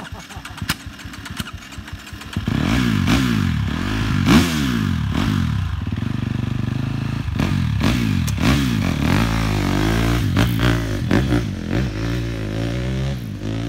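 Off-road dirt bike engine ticking over at idle, then from about two and a half seconds in revving hard again and again, its pitch rising and falling with each twist of the throttle as the bike pulls away. It fades a little near the end as the bike moves off.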